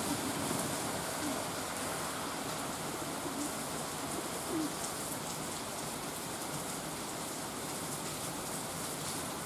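Steady rain falling on leaves and pavement, with a few short, low pigeon coos in the first half.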